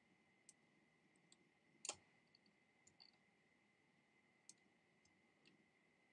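Faint, scattered clicks at a computer, one louder about two seconds in, over a faint steady high-pitched tone.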